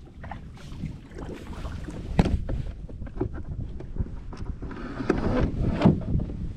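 Wind rumbling on the microphone, with scattered irregular knocks and a short swishing sound about five seconds in.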